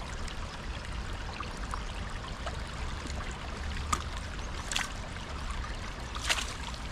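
Shallow river running over stones, a steady rush of water, with three brief crackles about four, five and six seconds in as the nylon net is handled.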